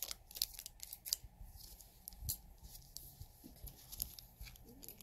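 A small shiny black pin bag crinkling and tearing as fingers pick it open: a string of short, uneven crackles.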